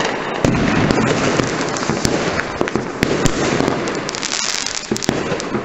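Many fireworks and firecrackers going off at once: a dense, continuous barrage of pops, bangs and crackling with no pause.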